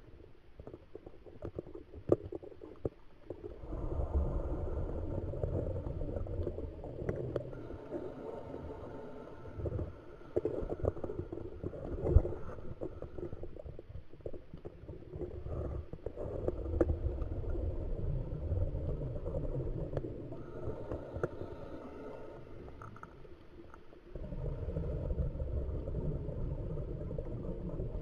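Scuba diver's exhaled bubbles rumbling and gurgling past an underwater camera in four long bursts, with short quieter pauses between them as the diver breathes in through the regulator. A sharp knock sounds about twelve seconds in.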